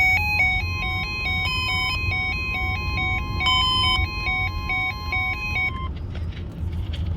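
NOAA Weather Radio's weekly test of its 1050 Hz warning alarm tone: one long steady tone over a stepping pattern of alternating beeps, about four changes a second, from the alert receivers. Both stop about six seconds in, leaving radio hum and hiss.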